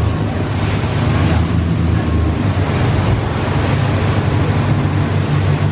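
Motorboat running fast over open sea: water rushing and spraying off the hull over a steady low engine drone, with heavy wind buffeting the microphone.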